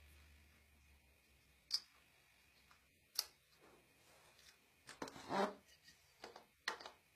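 A few separate sharp clicks and a short clatter about five seconds in, from the mechanism of a homemade rubber band machine gun being worked by hand.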